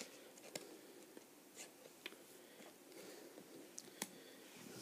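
Near silence: room tone with a few faint clicks, the sharpest about half a second in and again near the end.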